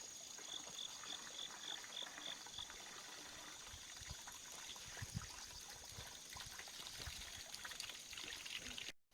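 Faint steady trickle of running water, like a small stream, with a thin high steady buzz over it and a quick chirping about four times a second that stops about two and a half seconds in. The sound cuts off abruptly just before the end.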